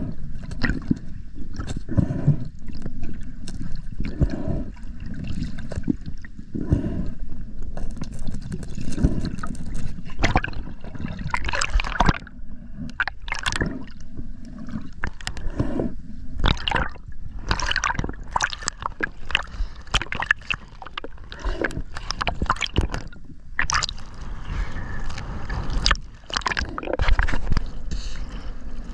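Water gurgling and rushing around an underwater camera during a freedive, with many sharp clicks and knocks. Near the end it turns to splashing as the camera breaks the surface.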